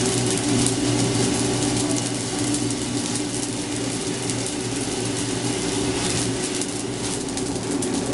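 Commercial coffee roaster running with a steady motor and fan hum, freshly roasted beans rattling and crackling as they are stirred in the cooling tray.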